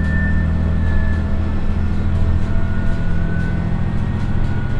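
Komatsu DMF11HZ (SA6D125H) six-cylinder diesel engine of a KiHa 100 railcar under way, heard inside the passenger cabin as a loud, steady low drone; its deepest note drops away about two seconds in. Faint higher whining tones from the DW14 transmission run over it.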